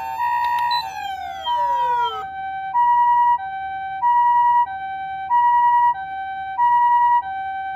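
Osaka Siren MK-D1 siren amplifier sounding the Japanese ambulance two-tone siren: a high tone and a low tone alternating, each lasting a little over half a second. About a second in, the preceding tone slides down in pitch and gives way to this clean high-low pattern.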